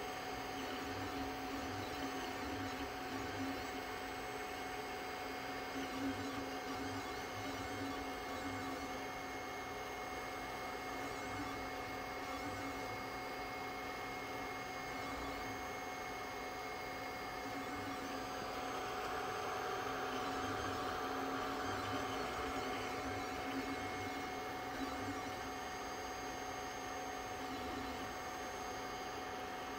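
A 3D printer standing idle with its heated bed on, its fans running with a steady hum and a thin high whine that comes and goes. The hum grows slightly louder for a few seconds past the middle.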